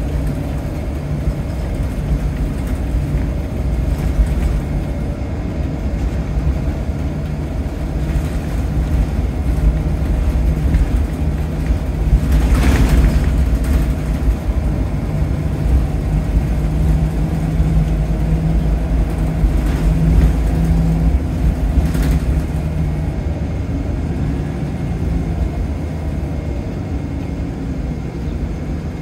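Scania L94UB Wright Solar single-deck bus heard from inside on the move: a steady low diesel drone with road and body noise, a brief louder whoosh about halfway through and two sharp clicks a little later.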